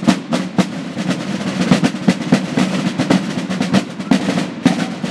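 A drum group playing a fast, driving rhythm on drums, with dense snare-style strokes over a steady low drum pulse.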